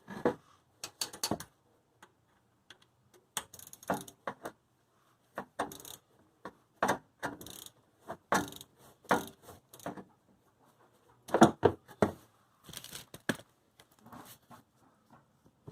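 Ratchet wrench clicking in short, irregular bursts as the oil filter is loosened.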